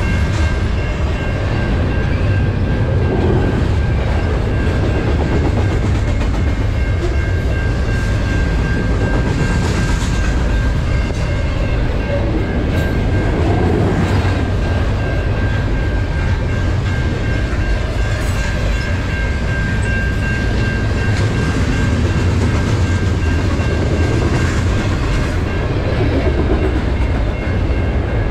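Double-stack intermodal freight train rolling past: a steady rumble of steel wheels on rail with the clickety-clack of well cars passing over the rail joints, and a steady high ringing tone over it.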